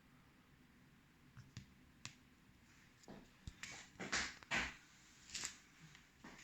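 Faint handling noise: a scattered run of light clicks and knocks with short scuffs, of small hard objects being moved, starting about a second in.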